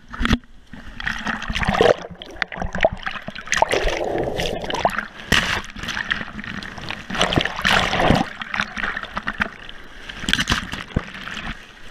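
Breaking surf and whitewater sloshing and splashing around a waterproof action camera held at water level: irregular rushes of foam with sharp splashes against the housing.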